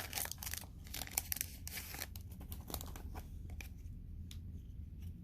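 Plastic wrapper of a baseball card pack crinkling and tearing as it is opened, with cards being handled; a flurry of crackles in the first two seconds, then lighter rustling.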